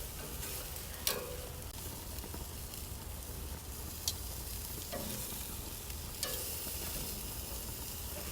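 Marinated shrimp sizzling steadily as it cooks, with a few short sharp clicks scattered through.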